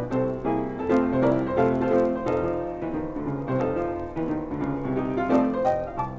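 Piano music with many quick notes over a lower line, the cartoon's soundtrack score.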